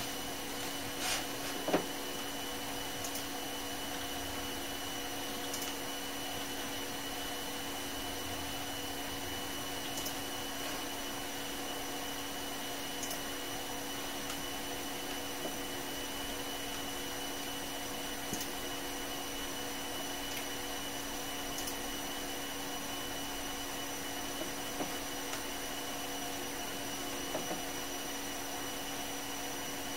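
Dell Optiplex 390 desktop computer running with its side panel off: a steady whirring hum from its cooling fans, with a few faint clicks of keys pressed on the keyboard.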